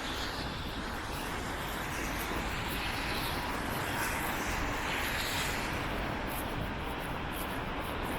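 Storm wind rushing and rumbling on the microphone, with a swell in the noise a few seconds in.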